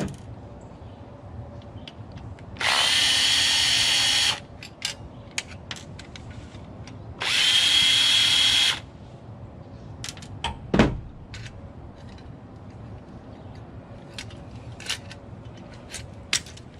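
DeWalt drill-driver running in two bursts of about a second and a half, each with a steady high whine, driving screws out of an old push-button telephone's housing. Light clicks of parts being handled follow, with one sharp knock about eleven seconds in.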